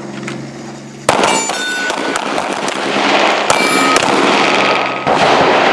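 Handgun shots from several shooters firing at targets, loud sharp cracks about a second in, around three and a half seconds and around five seconds, with a metallic ringing after some of them, typical of hits on a steel plate.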